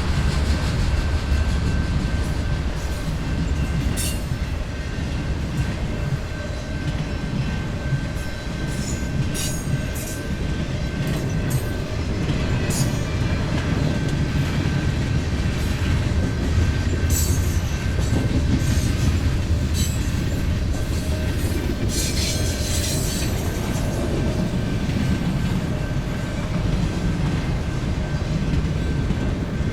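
Train passing, its cars rolling by with a steady low rumble. Now and then there are brief high squeals and clicks from the wheels on the rails, most of them in a cluster about two-thirds of the way through.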